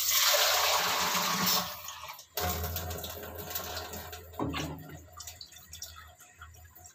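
Water poured from a measuring jug into a large aluminium pressure cooker of harira soup, splashing into the liquid. It comes in two pours, breaking off briefly about two seconds in, and grows quieter over the last couple of seconds.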